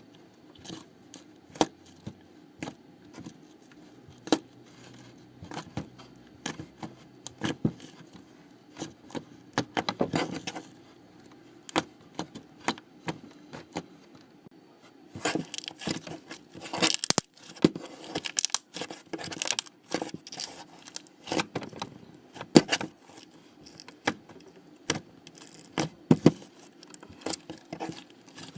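Slime being squeezed and stretched by hand, giving irregular sticky clicks and pops that come thicker and louder in the second half.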